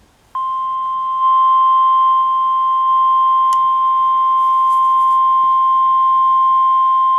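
NOAA Weather Radio 1050 Hz warning alarm tone: one loud, steady high tone that starts a fraction of a second in and holds unbroken. It signals that a warning broadcast follows, here a special marine warning.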